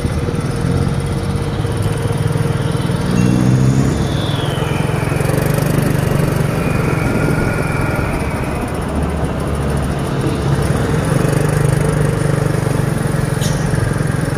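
Heavy truck diesel engines running steadily at low speed as loaded trucks crawl over a broken road. The engine note rises briefly about three seconds in.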